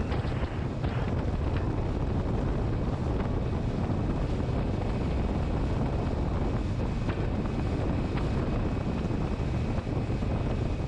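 Wind buffeting the microphone and water rushing past the hull of a bass boat running fast across choppy lake water: a steady, low rushing noise.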